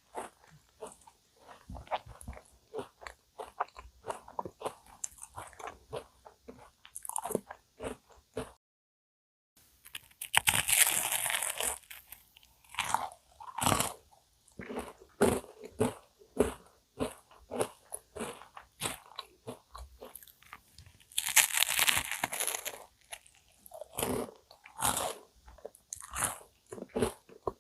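Close-miked biting and chewing of cookie choux cream puffs: crisp crunches of the cookie-topped shell between softer chewing. The audio cuts out for about a second near nine seconds in, and the densest, loudest crunching comes at about ten to twelve and twenty-one to twenty-three seconds.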